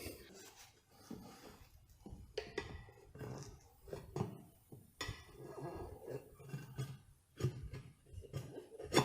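Faint, scattered knocks, taps and scrapes of a screwdriver prying a lawn mower tire's rubber bead onto its wheel rim, with a few sharper knocks.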